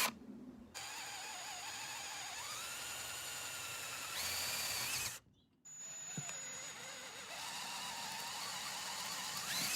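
Power drill boring holes into the top of a timber barn door: two runs of a steady motor whine that rises in pitch as it speeds up, with a short break between them about five seconds in.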